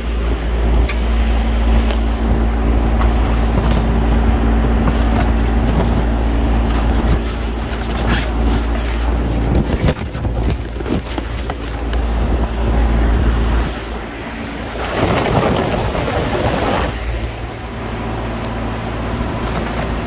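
Steady hum and rushing air of running refrigeration rack condenser fans, with heavy wind rumble on the microphone. Scattered clicks and knocks of hands and tools in the middle, and a louder rush of air about 15 seconds in.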